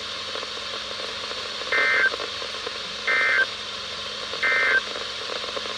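NOAA Weather Radio SAME end-of-message code: three short, identical bursts of buzzy two-tone digital data about 1.4 s apart, over steady receiver hiss, signalling the end of an alert message.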